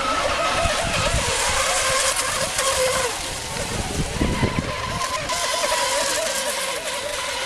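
Racing RC monohull boats running at full speed: a high motor whine that wobbles up and down in pitch as the hulls skip over the water, over a steady hiss.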